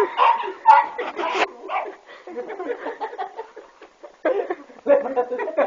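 A dog barking and yipping in short repeated bursts, which thin out for a couple of seconds in the middle and pick up again near the end.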